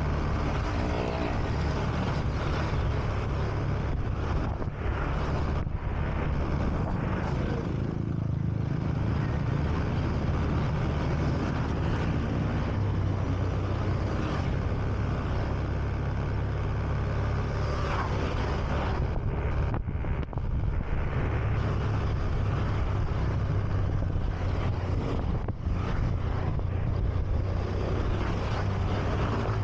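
Honda Beat scooter's small single-cylinder engine running steadily while riding, mixed with a constant low rumble of wind and road noise.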